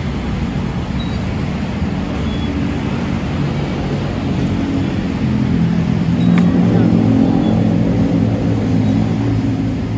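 Steady road traffic rumble. About halfway through, a vehicle engine grows louder and holds for a few seconds as it passes.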